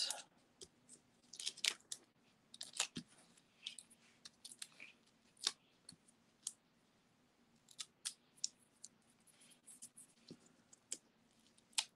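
Foam adhesive dimensionals being peeled off their backing sheet and pressed onto a card-stock panel: scattered soft clicks, taps and paper crinkles at an irregular pace.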